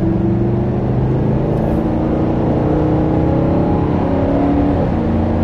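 Nissan Titan Pro-4X's 5.6-litre V8, heard from inside the cab, with a low tone as the truck accelerates. Its pitch climbs slowly, then drops near the end as the automatic shifts up, with tyre and road noise underneath.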